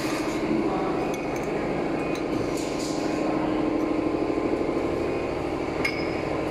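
A few light metallic clinks as an aluminium mould plate is handled and seated on its locating shaft in a cup filling and sealing machine, the clearest one near the end, over a steady mechanical hum.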